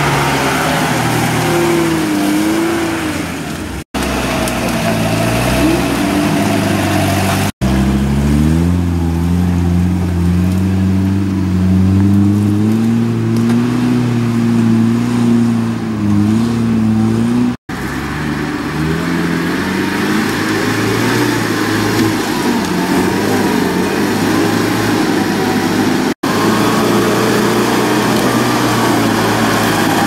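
Off-road 4x4 engines revving hard while driving through deep mud, in several short takes that cut off abruptly: first a Lada Niva, then UAZ-469s. In the longest take the revs climb over a couple of seconds and are held high, wavering, as the vehicle pushes through.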